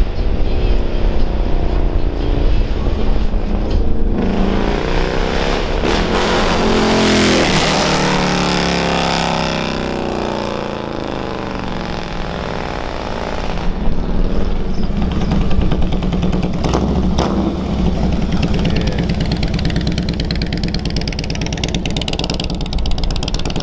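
Large touring motorcycles riding by and pulling away, their engines running loud. Between about 4 and 10 seconds in, the engine note sweeps up and down in pitch as a bike accelerates past. From about 14 seconds on, a steadier engine note follows.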